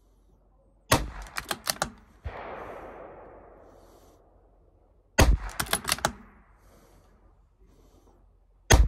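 CZ 457 bolt-action .22 rimfire rifle fired three times, about a second in, about five seconds in and at the very end. Each shot is followed by a quick run of clicks as the bolt is worked. A separate bang with a long fading echo comes shortly after the first shot.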